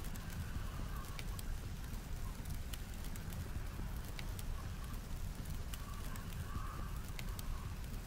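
Wood fire crackling, with scattered sharp pops at irregular intervals, over a steady low rumble of blizzard wind.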